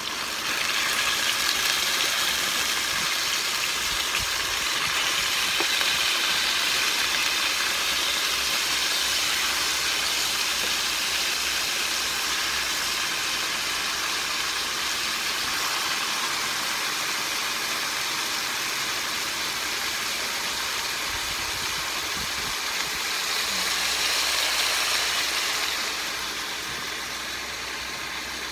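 Raw chicken pieces frying in hot oil with sliced onions in a large stainless steel pan: a loud, steady sizzle. It jumps up about a second in as the chicken goes in, swells again near the end, then dies down a little.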